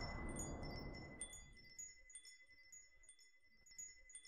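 Soft, tinkling chime strikes, a few a second, over a steady high tone, while a whoosh fades out over the first second and a half: the sound design of an animated logo ident.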